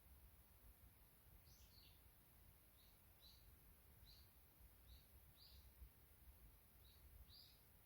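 A small bird chirping faintly: a dozen or so short, high chirps at a steady pace of about one to two a second, starting about a second and a half in. A faint low rumble runs underneath.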